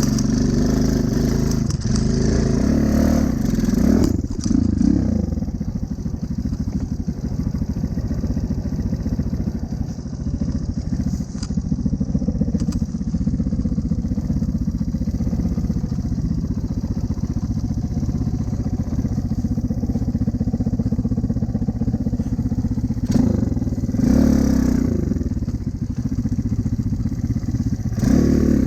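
Small single-cylinder Honda Cub engine running steadily as the motorcycle rides along, with louder, rougher stretches near the start and near the end.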